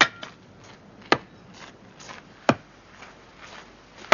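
Axe chopping wood: four sharp, loud strikes about every second and a half, with fainter knocks between them.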